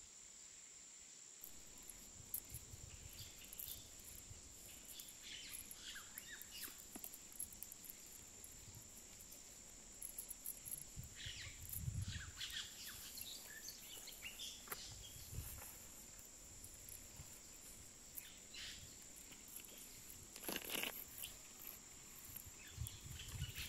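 Faint outdoor ambience with a steady high-pitched insect drone, likely a cricket. Over it come scattered soft crackles and rustles as the charred skins are peeled off ember-roasted sweet potatoes by hand.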